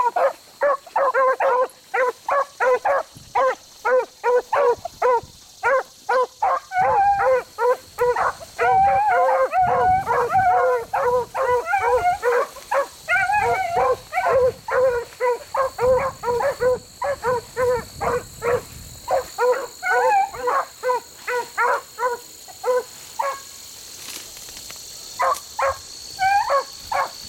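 Beagles baying while running a rabbit's scent: a fast, steady string of short barks, about three or four a second and at times overlapping, that thins out briefly near the end before picking up again.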